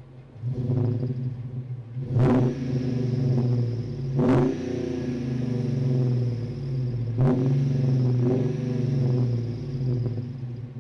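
Exhaust of a Jeep Wrangler JK's swapped-in 5.7 Hemi V8, revved up from idle with the revs wavering. Three sharp throttle blips come about two, four and seven seconds in, and it settles back toward idle near the end. A loud V8 exhaust note.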